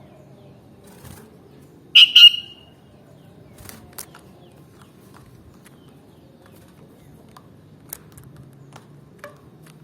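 Sooty-headed bulbul giving one short, loud call of two quick notes about two seconds in, followed by a few faint ticks.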